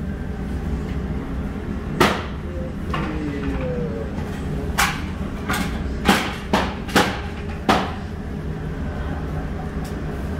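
A series of sharp, irregular knocks and clanks of kitchen work at a commercial chicken grill, about eight in all, most of them in the middle of the stretch. They sound over a steady low hum of the kitchen's ventilation.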